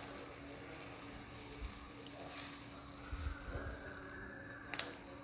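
Faint scraping of a ladle spreading adai batter in circles on a hot tawa, with a soft hiss building about three seconds in. A low steady hum runs underneath, and a sharp click comes near the end.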